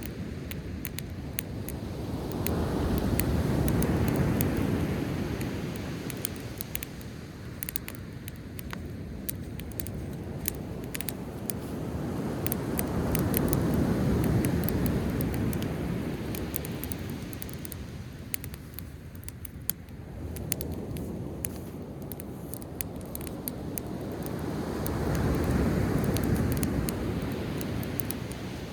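Sea waves breaking on the shore in three slow surges, about ten seconds apart, over a driftwood campfire crackling and popping with many sharp snaps.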